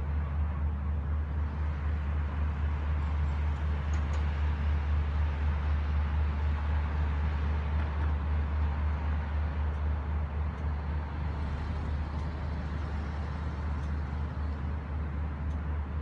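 Outdoor city ambience: a steady low rumble of distant road traffic with an even background hum, and a few faint high ticks.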